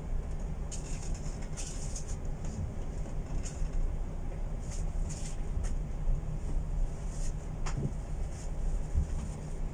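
Steady low rumble of a tanker under way in rough seas, the ship's running noise mixed with wind and sea. Brief hissing gusts come at irregular intervals.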